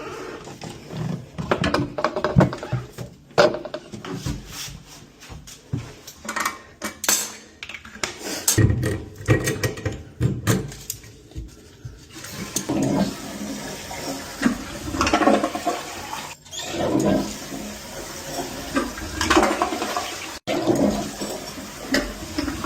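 Water rushing and gurgling through a toilet, with knocks and clatter of hands-on plumbing work on the toilet.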